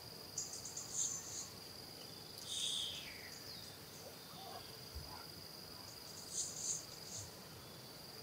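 Insects, crickets, droning on one steady high pitch, with short high chirps breaking in a few times, one of them sliding downward.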